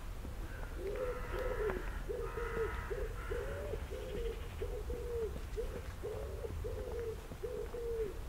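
A pigeon cooing: a long run of low, soft coos in repeated phrases, starting about a second in and going on throughout.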